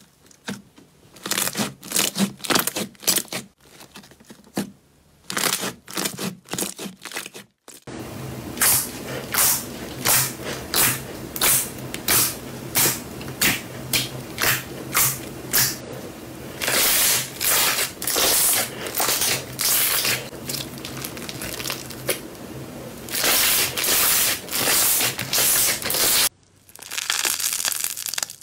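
Slime being stretched, pressed and poked by hand, making quick runs of crackling, popping clicks. Partway through, the presses fall into an even rhythm of about three every two seconds.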